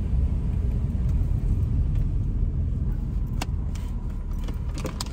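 Low, steady rumble of a car's engine and tyres heard from inside the cabin as it is driven slowly into a parking spot, with a couple of sharp clicks about three and a half seconds in and near the end.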